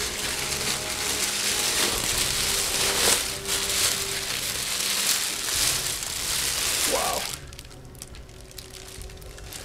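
Clear plastic bag crinkling as it is pulled off a life-size metal bust, stopping suddenly about seven seconds in.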